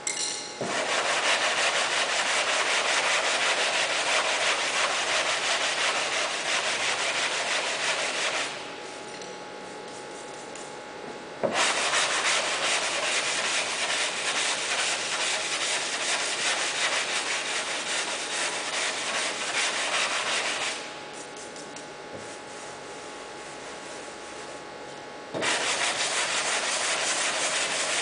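Coarse-grit sandpaper on a hand sanding block rasping over cured body filler on a car door, shaping the putty patch. It comes in three long spells of steady scraping, broken by two short pauses, one about eight seconds in and a longer one near twenty-one seconds.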